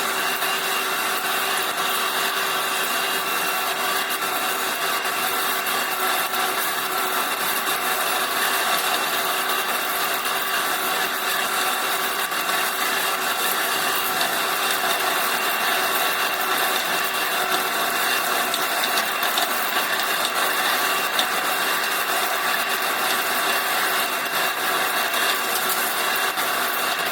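Lathe running steadily while the cutting tool turns a workpiece: a continuous scraping, grinding noise over a steady machine hum with a few fixed tones.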